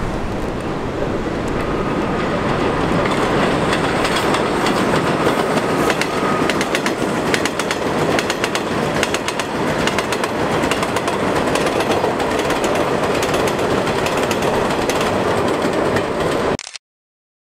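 Vintage NYC Subway train of R33 and World's Fair cars rolling past on elevated track. Its wheels clatter steadily with a quick run of clicks over the rail joints. The sound drops out for under a second near the end.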